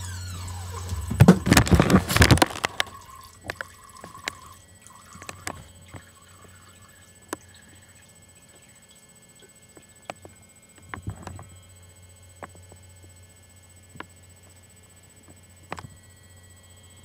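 A cat urinating into the water of a toilet bowl: a thin trickle that stops about a second in. Then comes a loud, noisy burst lasting about a second, followed by quiet with scattered small clicks and taps.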